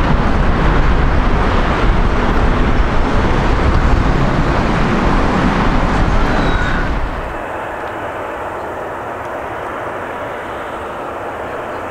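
Jet airliner engine noise, a loud dense rumble, which drops suddenly about seven seconds in to a quieter, steady jet noise.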